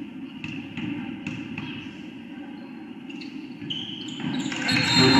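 A basketball bouncing repeatedly on a hardwood gym floor. About four seconds in, the gym gets louder and some high squeaky tones come in.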